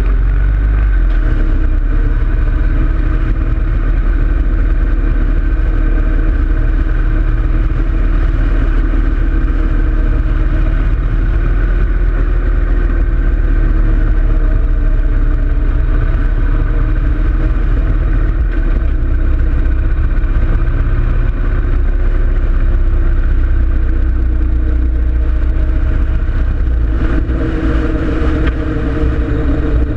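2013 Harley-Davidson Road King Classic's V-twin engine running at cruising speed, with wind buffeting the handlebar-mounted camera's microphone. The engine note holds steady, rises near the end, then drops.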